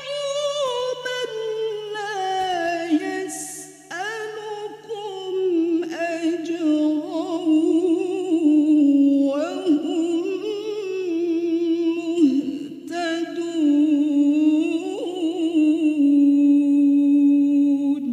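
A woman reciting the Quran in the melodic tilawah style, drawing out long, wavering notes with ornamented turns and short pauses for breath, and finishing on a long held note near the end.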